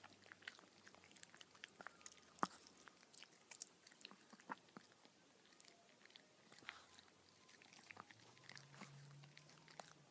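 A small dog chewing food: faint, crisp crunches and clicks of its teeth, irregular, a few each second.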